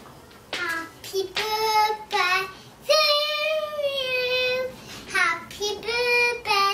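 A two-year-old girl singing in a high child's voice, a few short sung phrases and one long held note in the middle.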